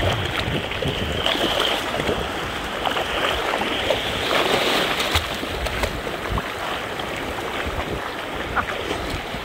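Shallow ocean surf washing and splashing around a dog paddling through the waves, with wind rumbling on the microphone.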